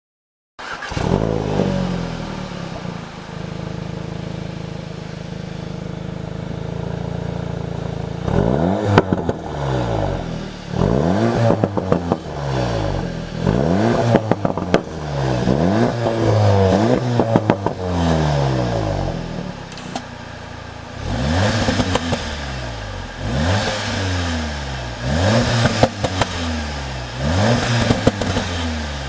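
SEAT Leon Cupra 2.0 TSI turbo four-cylinder through a non-resonated Baq Exhaust cat-back. It fires up with a brief flare, idles steadily, and from about eight seconds in is blipped repeatedly, about one rev every second and a half, with crackles and pops on the overrun.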